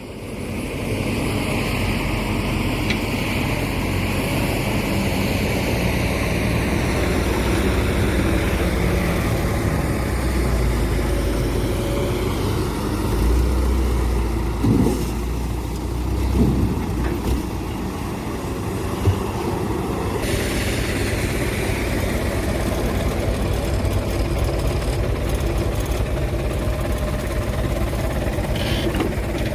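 Heavy diesel engines of an excavator and a dump truck running steadily, with the low rumble swelling for a few seconds midway. There are a few brief knocks and short sliding sounds.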